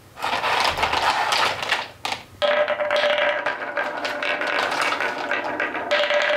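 Wooden balls rolling fast down a plywood serpentine marble-run track: a continuous rolling rattle with many small clacks as they hit the curved walls and each other. The rolling dips briefly about two seconds in, and a steady hum runs under it after that.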